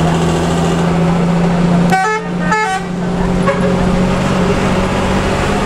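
Bus horn sounding two short, multi-note blasts about half a second apart, over the steady drone of the bus engine heard from inside the cabin.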